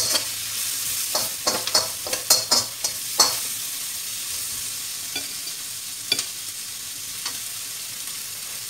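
Onions and garlic sizzling in hot oil in a wok, with a slotted spatula scraping and clacking against the pan as it stirs them. The clacks come thick in the first three seconds, then only now and then over the steady sizzle.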